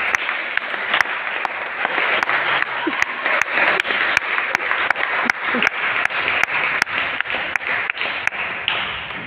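Spectators clapping in a steady rhythm, about three sharp claps a second, over a continuous wash of applause in a large, echoing hall.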